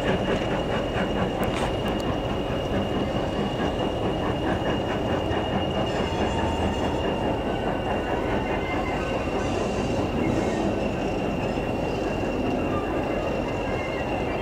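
Steam-hauled passenger train behind a Midland 4F 0-6-0 locomotive running away on a curve: the steady rumble of the coaches on the rails, with a thin, steady, high squeal from wheel flanges rubbing on the curved track.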